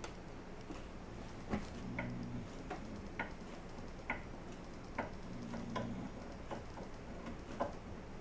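Light, irregular clicks and taps, about one every half second to a second, some with a short ring, as a homemade HDPE plastic drawer-rail bracket is worked into place and fastened inside a kitchen cabinet.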